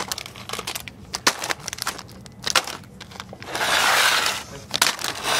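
Plastic soft-bait packs crinkling and rustling as they are handled in a plastic shopping basket, with scattered small clicks and taps. The crinkling grows louder for a moment about three and a half seconds in and again near the end.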